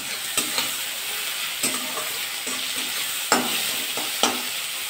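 Sliced onions and green chillies sizzling in hot mustard oil in a kadai while a spatula stirs them. Several sharp clicks of the spatula scraping and knocking against the pan punctuate the steady sizzle, the loudest a little past the middle.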